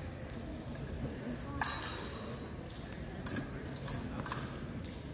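Épée blades clashing during a fencing bout: a few short, sharp metallic clinks, one about one and a half seconds in and a cluster between three and four and a half seconds in, over the steady hum of a large hall.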